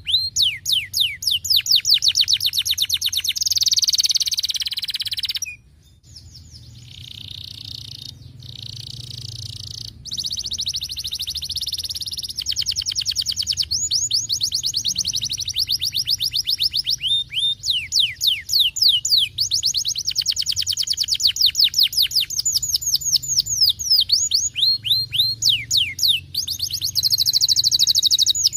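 Canary singing a long, continuous song of fast trills: rapid series of steeply falling whistled notes alternating with buzzy rolls. It breaks off briefly about five and a half seconds in, comes back softer, then builds again.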